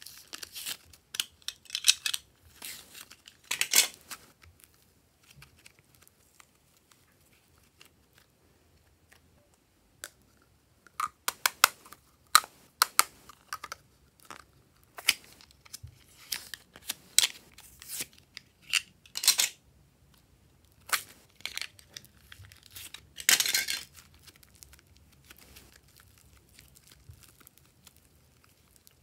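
Glossy slime stretched, folded and pressed by hand, crackling and popping in bunches of sharp clicks, with a quieter stretch between about five and ten seconds in.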